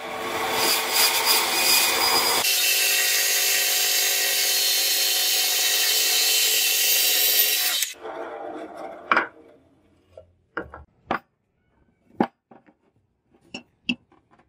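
Bandsaw running and cutting lengthwise through a wooden block, a steady motor hum under the noisy rasp of the blade in the wood; it ends abruptly about eight seconds in. A few short, sharp knocks follow near the end.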